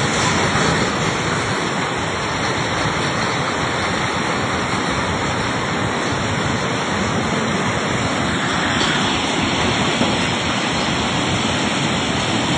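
A river in flood: a steady, loud rush of fast-moving muddy floodwater.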